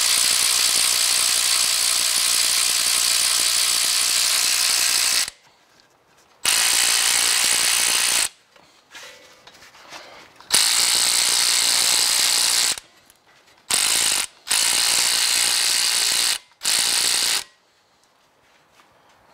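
Power ratchet running in bursts as it tightens the brake caliper bolts. One long run of about five seconds is followed by several shorter runs, each starting and stopping abruptly, with brief pauses between them.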